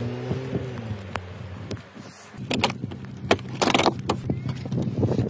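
Metal hand tools clattering and clinking as they are lifted out of a car's moulded tool tray, over a steady low hum.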